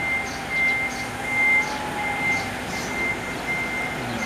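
Truck reversing alarm sounding a repeating high-pitched beep, several beeps a second apart, over the steady running of the truck's diesel engine.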